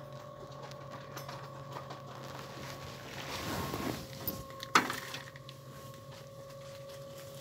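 Handling noise of a boxed plastic food container: a rustle a little before the middle and one sharp click just after it, over a steady electrical hum.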